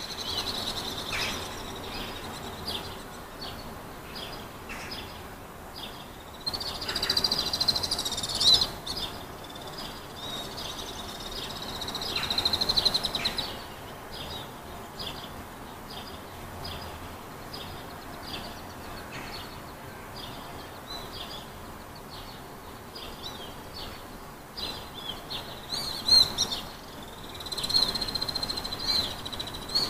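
Outdoor ambience of small birds chirping over and over, above a steady high-pitched buzzing trill that swells louder three times.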